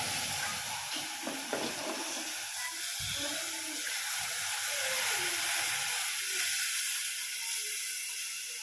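Saffron milk being poured into a hot pan of besan roasted in ghee, sizzling and hissing steadily as it hits the mixture, swelling a little in the middle and easing near the end.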